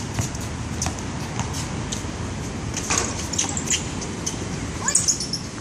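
Pickup basketball on an outdoor hard court: a ball bouncing and sneakers scuffing in a few scattered knocks and scrapes, the strongest about three and five seconds in, over a steady low rumble.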